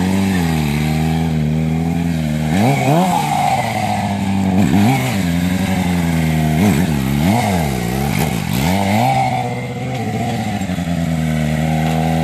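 Suzuki GSX-R600 inline-four engine held at steady revs during a wheelie. From about two and a half seconds in it is blipped several times, the revs rising and falling quickly, then it settles back to a steady note near the end.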